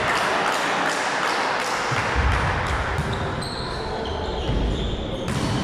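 Volleyball rally in a gym: a series of sharp slaps and thuds as the ball is served, passed and set, echoing in the hall over a steady background din. A low rumble starts about two seconds in.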